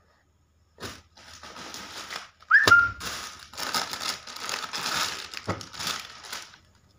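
Clear plastic packaging crinkling and rustling as a bagged, folded suit is handled, with a brief high squeak about two and a half seconds in.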